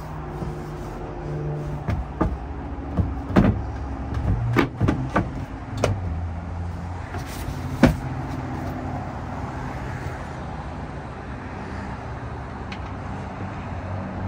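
Knocks and clunks of the camper bus's perforated ceiling panels and bed board being handled and set in place, a handful of sharp knocks in the first half with the loudest about eight seconds in, over a steady low hum.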